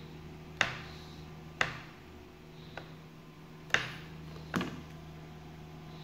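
Fingertip taps and clicks on a smartphone touchscreen: five sharp clicks roughly a second apart, one of them fainter, over a steady low hum.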